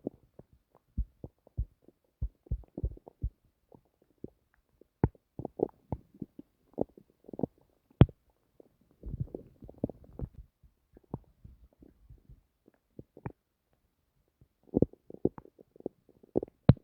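A person's stomach gurgling and rumbling: irregular short pops and gurgles, with a longer stretch of gurgling about nine seconds in and a quick run of pops near the end.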